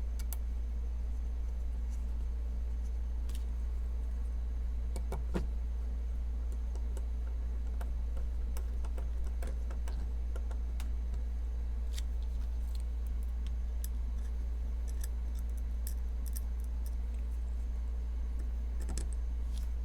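Scattered small metallic clicks and taps from a folding knife and its small parts and tools being handled during reassembly, over a steady low electrical hum.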